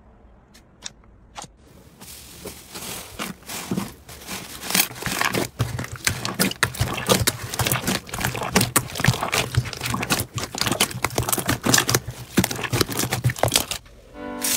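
Hands squishing and kneading slime in a bowl: a few faint clicks at first, then dense, irregular crackling, popping and squelching from about two seconds in.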